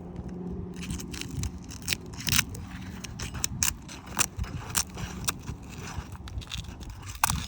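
Roof snake tool scraping and clicking against roof shingles as it works the existing seals and nails loose, in irregular short strokes and sharp ticks over a low steady hum.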